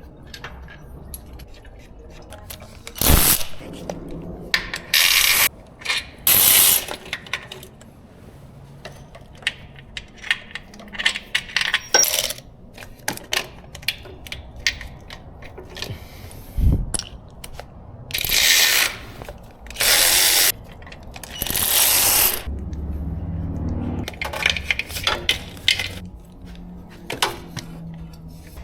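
Metal tools and engine parts clinking and clattering as a Hyundai 2.0T engine is taken apart, with several short, loud bursts of tool noise in between.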